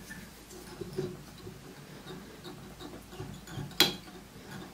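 Faint, irregular small clicks and ticks from fly-tying tools and a hook being handled while thread is wound on, with one sharper click near the end.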